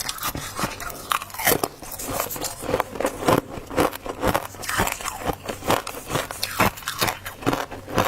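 Dry freezer frost crunching and squeaking as it is bitten and chewed close to the microphone, in a rapid run of crisp crunches.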